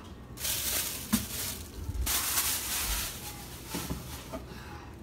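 A clear plastic bag holding raw chicken crinkling as it is handled in a stainless-steel sink, in two rustling stretches of about a second each, with a short knock against the sink between them.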